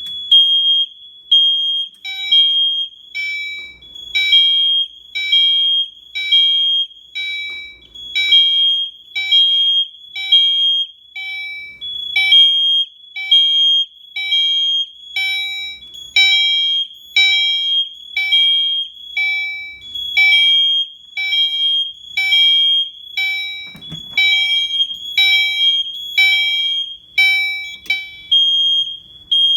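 Fire alarm notification appliances sounding together. A Simplex 2901-9836 horn (a rebranded Gentex GX90) is set to temporal code 3, and a Gentex GEC3-24WR chime strobe rings its continuous chime in repeated strikes about once a second. Both fire alarm systems are in alarm from a manually pulled pull station.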